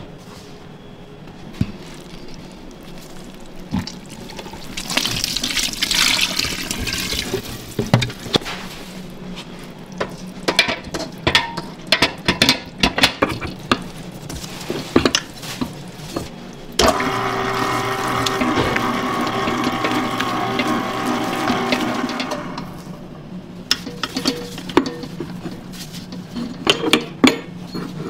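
Kitchen work sounds. Liquid pours briefly early on, then metal utensils clink and knock against a stainless-steel bowl, and an electric motor hums steadily for about five seconds in the middle before the clinking resumes.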